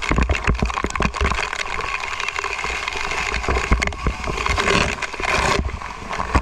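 Water splashing and spraying down over a water-park play structure, with a dense rush of water noise and many short knocks and bumps from climbing the steps. The spray swells for about a second near the end, then cuts off suddenly.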